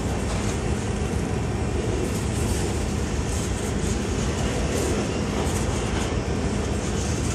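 Freight train of lumber-loaded centerbeam flatcars rolling past at close range: steady rolling noise of steel wheels on rail.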